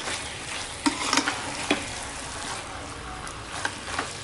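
Mutton pieces sizzling in thick masala in a pressure cooker while being stirred with a metal spoon, with a few sharp knocks and scrapes of the spoon against the pot. The meat is being sautéed so that it takes up the masala for mutton biryani.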